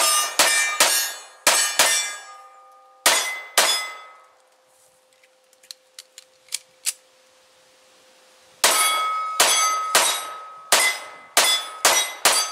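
Pistol fired in quick strings: about seven shots in the first four seconds, a pause with a few small clicks as it is reloaded, then about nine more rapid shots from about nine seconds in. A steady ringing tone lingers after the shots.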